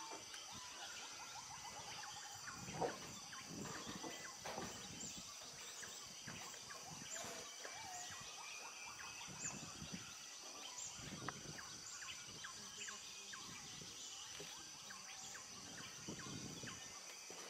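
Tropical rainforest dawn chorus: many birds calling and chirping over a steady high buzz of insects, with one louder call about three seconds in.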